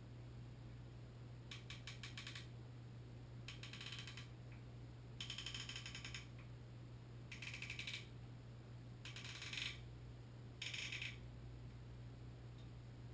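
Six short bursts of rapid clicking, each under a second long and coming about every two seconds, over a faint steady low hum.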